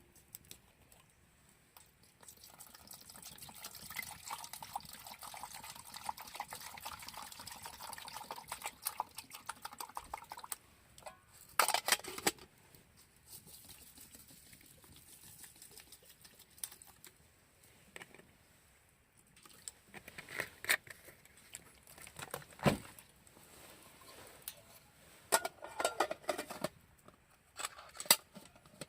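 Water pouring steadily into a container for about eight seconds, followed by scattered sharp knocks and clicks of things being handled.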